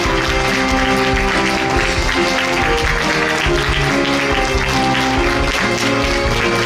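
A live theatre band playing curtain-call music, with audience applause underneath.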